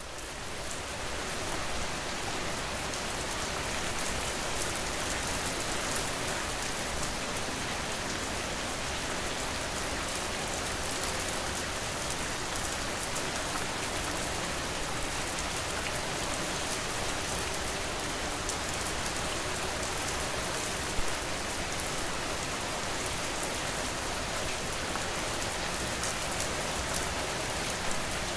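Steady, heavy rain, a dense hiss of drops on a surface with fine individual patters. It swells up over the first second or two, and there is one louder sharp drop or tick about three-quarters of the way through.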